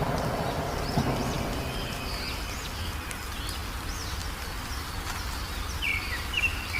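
Wild songbirds chirping in short, quick rising-and-falling notes over a low background rumble. The rumble swells suddenly about a second in, then slowly fades.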